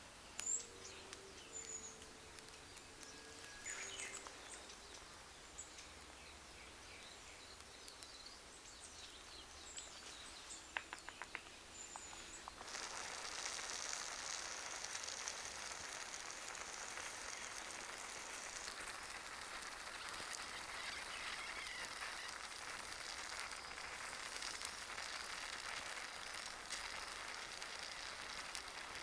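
Outdoor ambience with small birds chirping and a few sharp crackles, then about halfway through a steady hiss comes in and holds.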